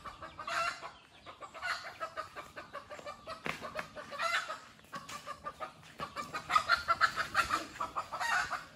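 Chickens clucking, a string of short repeated calls that gets busier near the end.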